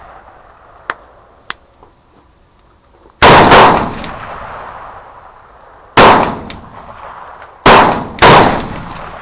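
Gunshots at a firing range: two light clicks about a second in, then a run of loud shots, about four, from about three seconds in to near the end, each with a trailing echo.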